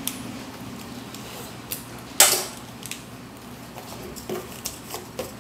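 Haircutting shears and a cutting comb worked through a mannequin's wet hair: scattered small snips and clicks, with one louder, brief rustling burst about two seconds in.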